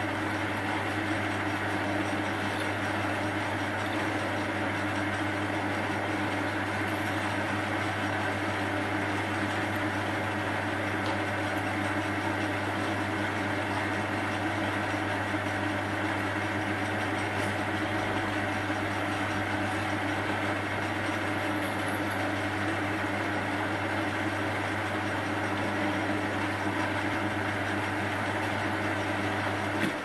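Metal lathe running steadily, its chuck turning a bolt while a twist drill fed from the tailstock bores the bolt's central gallery. The sound cuts away at the very end as the lathe is switched off.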